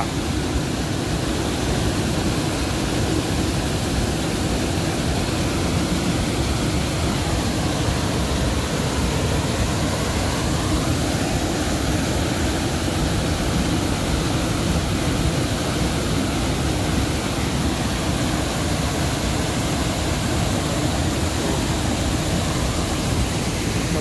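White water of a wide, stepped waterfall pouring over rock ledges: a steady, loud rush with no let-up.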